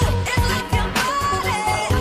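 Pop music soundtrack with a steady electronic beat and a sung melody.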